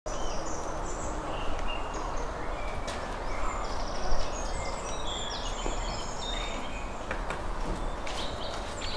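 Outdoor ambience: many small birds chirping and trilling over a steady background noise, with a few light clicks near the end.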